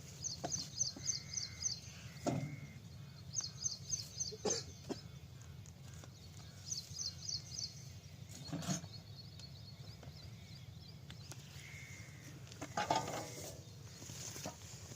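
A bird calling in quick runs of high chirps, three runs in the first half, with a few sharp knocks and a steady low hum underneath.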